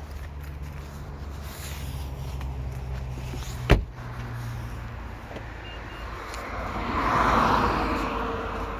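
A vehicle passing on the road, its noise swelling and fading over a few seconds in the second half, over a steady low hum. A single sharp knock sounds a little before the middle.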